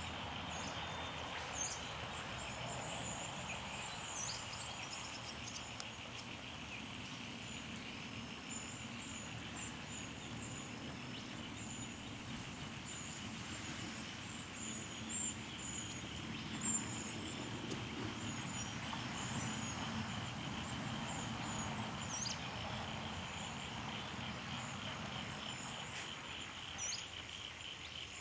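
Outdoor ambience: small birds chirping in short, high calls scattered throughout, over a steady insect drone and a low background rumble.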